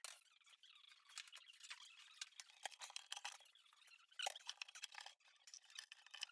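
Faint squeaks, scrapes and small clicks, from a dishwasher being pushed into its cabinet space.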